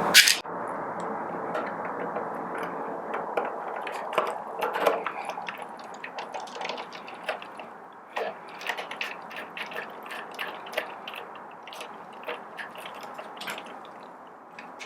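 Scattered light clicks, taps and small rattles of a screwdriver, small screws and grinder housing parts being handled as the grinder's upper and lower halves are unscrewed and separated, over a steady low hiss.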